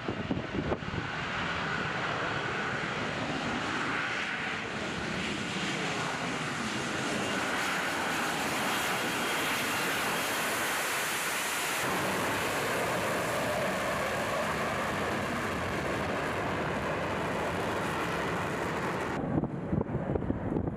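F-35B's jet engine and lift fan running as the jet hovers for a vertical landing: a steady rush of jet noise with a faint whine on top, which drops away suddenly about a second and a half before the end.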